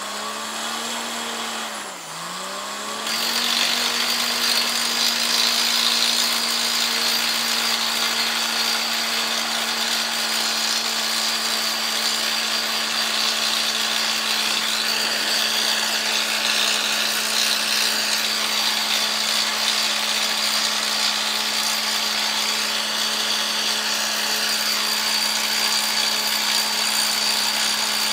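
Truck-mounted borewell drilling rig running. Its engine revs up, dips briefly about two seconds in, then holds a steady high speed. About three seconds in, a loud hiss of compressed air starts and carries on: the air is blasting red dust and rock cuttings up out of the borehole.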